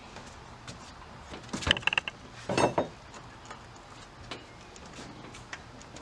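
Newly installed ReliaBilt sliding patio door being worked by hand. A cluster of sharp metallic clicks comes about a second and a half in, then a short rumble of the panel sliding about a second later, followed by a few light knocks.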